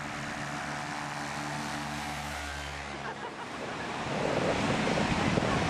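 Paramotor engine running with a steady, even drone as the powered paraglider comes in low over the beach, stopping about three seconds in. Then a rougher noise of wind and surf.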